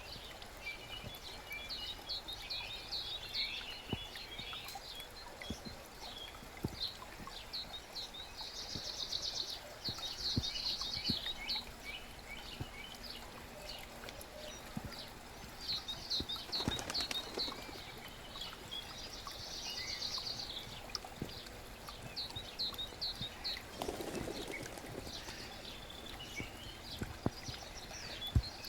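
Songbirds singing repeated high trills and chirping phrases over the steady rush of a forest brook.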